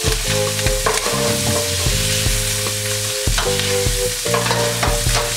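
Diced pork jowl sizzling and spitting in hot fat in a stainless-steel pan, with a metal spoon scraping and stirring through it.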